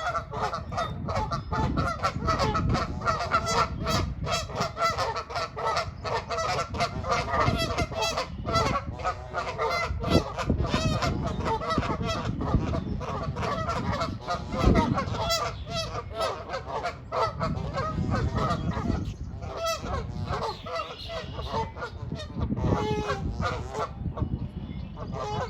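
A flock of geese honking, many calls overlapping in a constant din, the noisy territorial calling of geese guarding their goslings.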